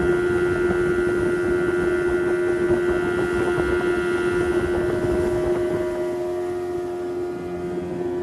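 Speedboat's outboard engine running at a steady cruising speed, a constant drone over the rush of wind and water, easing slightly near the end.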